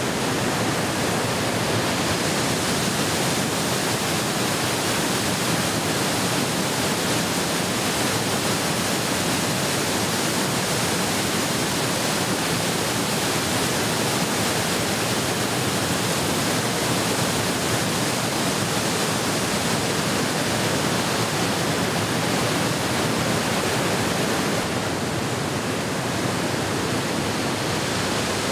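Fast-moving stream water rushing, a dense, steady hiss that goes a little duller a few seconds before the end.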